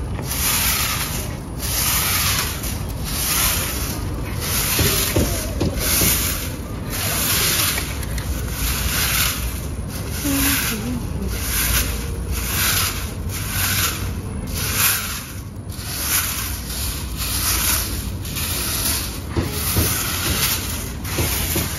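Long-handled bristle broom sweeping a bare dirt yard: rhythmic scratchy swishes of the bristles dragged over sandy earth, a little more than one stroke a second.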